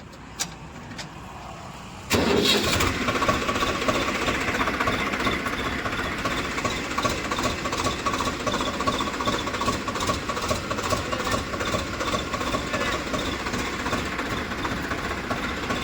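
Tractor diesel engine starting: a few faint clicks, then the engine catches abruptly about two seconds in and runs steadily.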